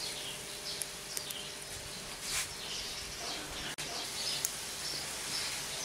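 Small birds chirping over a steady hiss of duck, peppers and onions sizzling in a cast iron skillet on a wood-fired stove, with a few sharp crackles from the burning twigs.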